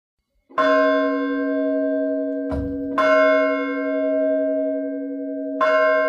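Russian Orthodox church bell struck three times, about two and a half seconds apart, each stroke ringing on into the next: the opening strokes of a water-blessing perezvon. A short low knock comes just before the second stroke.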